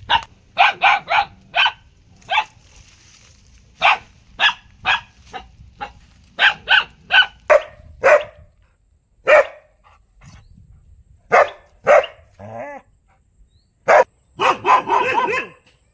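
Dog barking repeatedly in short sharp barks, some single and some in quick runs of three or four, ending in a fast string of barks near the end.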